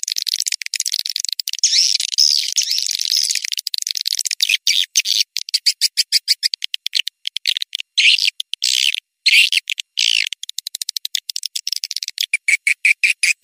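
Edible-nest swiftlet call recording used to lure swiftlets into a bird house: dense, high twittering chatter shot through with rapid clicks, giving way near the end to a steady series of short chirps, about three a second.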